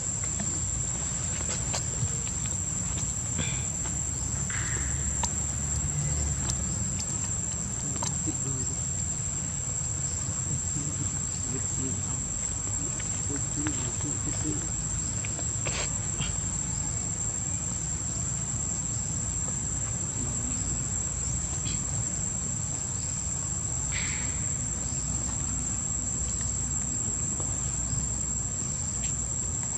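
Insects droning steadily in one unbroken high-pitched tone, over a low rumble, with a few faint clicks and short chirps.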